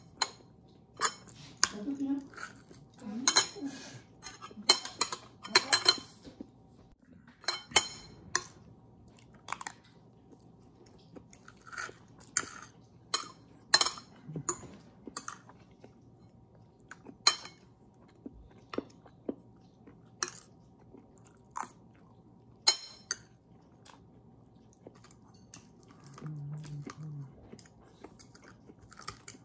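Eating at a plate: irregular sharp clinks and scrapes of cutlery on dishes, with chewing close to the microphone.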